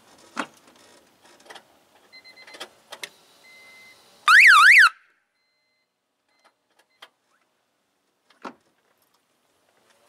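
Under-hood alarm siren giving one short, loud warble, rapidly sweeping up and down, for about half a second when the ignition key is turned to start. The five-blade relay kill switch is open, so the start signal goes to the siren and the engine does not crank. A few knocks and clicks come before and after, with a faint steady hum just before the siren.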